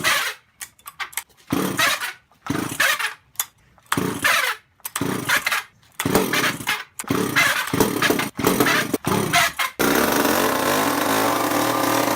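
Chainsaw's two-stroke engine being pull-started: a string of short cranking bursts as the starter cord is yanked again and again. About ten seconds in, it catches and keeps running steadily.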